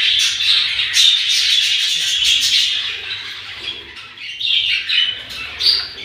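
A flock of budgerigars chattering and squawking: a dense, continuous run of short high chirps that thins out briefly about four seconds in.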